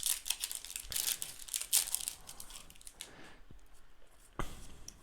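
Foil trading-card booster pack wrapper crinkling and tearing as it is opened, a dense crackle for about three seconds, then quieter handling with a single click near the end.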